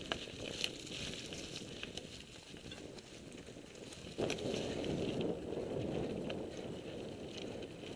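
Mountain bike being ridden over rough bush ground: tyres crunching over dirt, grass and sticks, with frequent clicks and rattles from the bike. About four seconds in, a louder steady rushing noise sets in.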